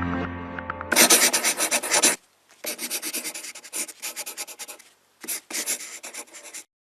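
Scratchy rubbing and rasping noise in four bursts, each a fast run of strokes.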